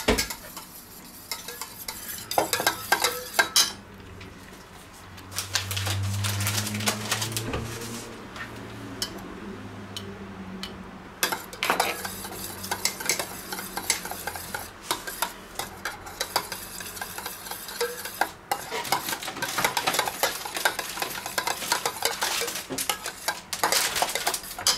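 A metal spoon stirring and scraping around a small stainless-steel bowl of thick tomato sauce, with repeated light clinks of the spoon against the bowl as tomato paste is mixed with water and herbs.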